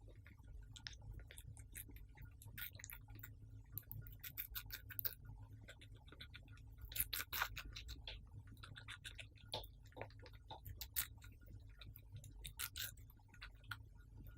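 Hamster chewing watermelon: faint, irregular wet nibbling clicks and crunches, a little denser about halfway through, over a steady low hum.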